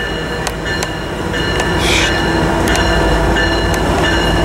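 Amtrak Pacific Surfliner passenger train, led by an EMD F59PHI diesel locomotive, pulling slowly into the station. Its low rumble grows louder as it approaches, with scattered sharp clicks from the wheels on the track.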